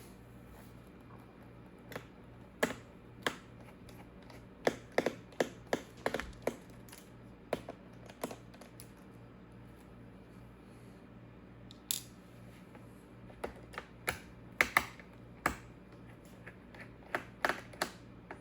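Scattered sharp clicks and taps of something being handled, some coming in quick runs, over a low steady hum.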